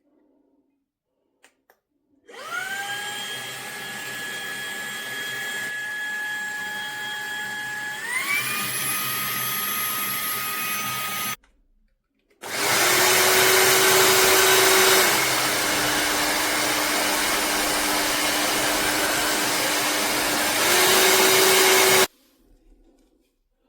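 Fanttik Slim V8 Apex cordless handheld vacuum's motor whining with rushing air, switched on twice. The first run steps up to a higher pitch partway through, then stops. The second run is louder and noisier, dips in pitch for a while, and rises again near the end before cutting off.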